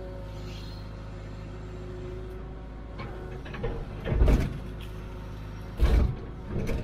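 Hitachi UH043 excavator's diesel engine running steadily while digging, with two heavy clunks about four and six seconds in and a lighter one just after.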